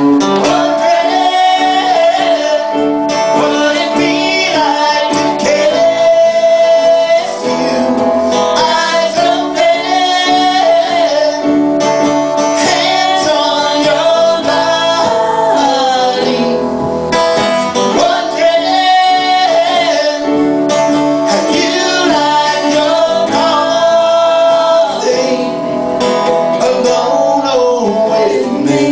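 Country-style song: acoustic guitar strumming with singing over it.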